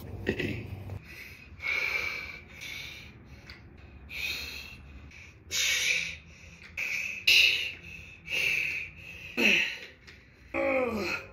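A man breathing out hard and hissing through clenched teeth, rep after rep, as he strains through a weight exercise, about once a second. Near the end come two strained groans that fall in pitch.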